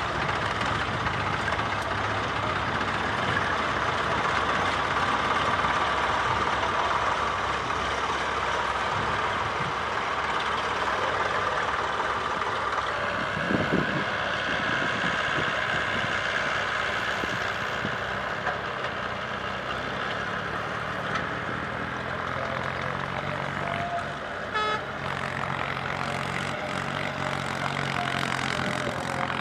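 Diesel engines running steadily: first a loaded tipper truck driving by, then, after a change about halfway through, a tractor's engine pulling a sand-laden trolley with a low, even engine note.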